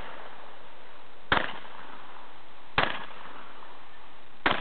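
Shotgun fired three times in quick succession, about a second and a half apart.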